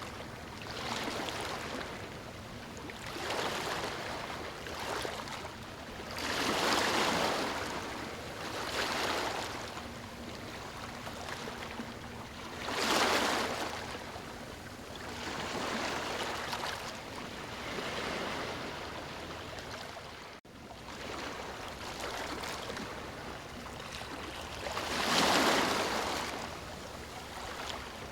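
Ocean waves breaking and washing up on a beach, the surf surging and receding every few seconds, with the biggest surges about a quarter, half and nine-tenths of the way through. A momentary dropout about two-thirds of the way through.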